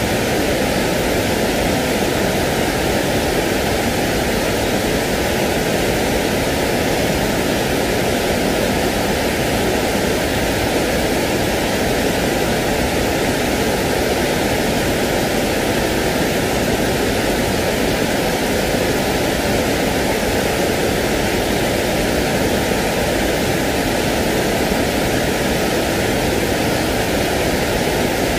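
Continuous, unvarying rushing noise of a sleep-noise track, fuller in the lower middle with a narrow hollow just above it.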